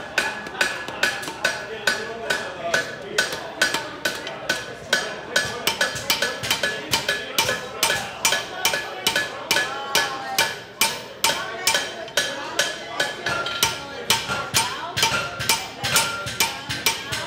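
Hand hammer striking red-hot steel held in tongs on an anvil, a steady rhythm of about three to four blows a second, with the anvil ringing between blows.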